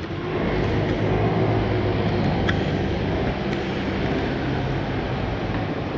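Steady city traffic noise, with the low hum of a vehicle engine running close by.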